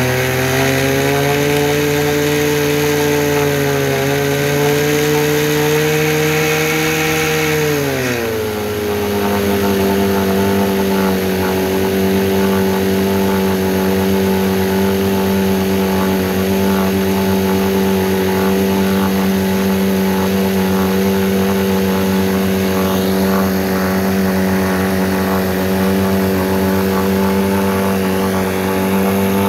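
1963 Evinrude Sportwin 10 hp two-cylinder two-stroke outboard running in a water test barrel. It runs faster at first, then is throttled back about eight seconds in and settles to a steady slower speed.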